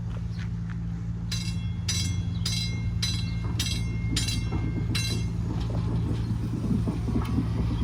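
Nippon Sharyo P865 light rail car's warning bell ringing seven evenly spaced strokes, a little under two a second, then stopping, over the car's steady low hum.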